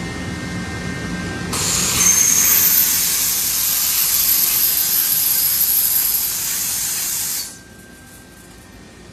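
Compressed air hissing from a blow-off nozzle, as on a shop air gun used to clear chips from a CNC lathe. It starts abruptly about a second and a half in, holds loud and steady with a faint high whistle, and cuts off sharply about six seconds later.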